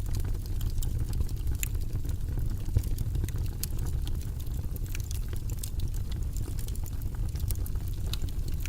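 Fire burning in a fireplace: scattered sharp crackles and pops over a steady low rumble.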